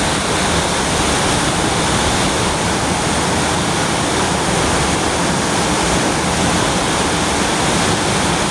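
Rushing river water: a steady, loud, even rush with no breaks.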